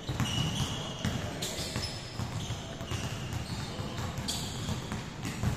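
Many basketballs being dribbled at once on an indoor court, their bounces overlapping into a constant patter. Short, high sneaker squeaks rise above it now and then.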